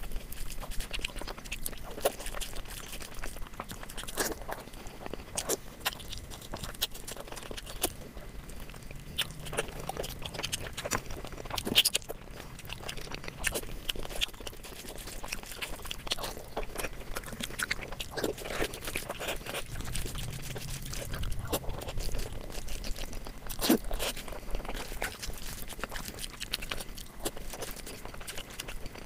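Close-miked chewing and biting of food, with irregular wet mouth clicks and crunches.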